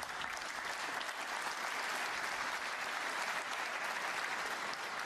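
Snooker audience applauding steadily at the end of a player's break.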